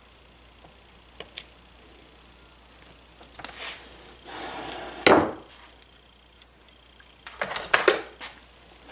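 Small metal hand tools and wire parts being handled on a workbench: a couple of light clicks, a rustle, a loud clack about five seconds in, then a quick run of clicks and clinks near the end.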